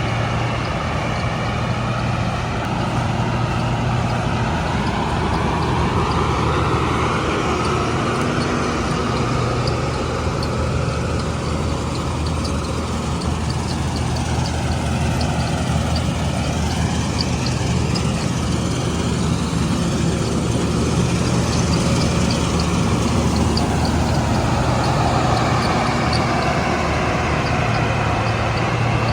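Combine harvester running steadily under load, a deep engine drone with a higher whir from the threshing machinery that slowly rises and falls in pitch.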